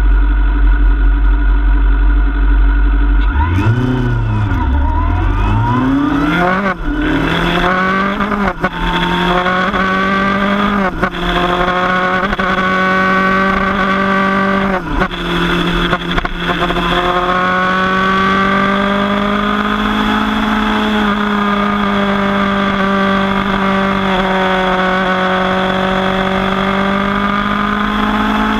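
Kawasaki Z1000's inline-four engine idling, then accelerating hard through the gears: revs climb and break off in quick upshifts every couple of seconds, each marked by a brief dip in sound. It then settles into a steady cruise with the engine note drifting slowly up and down.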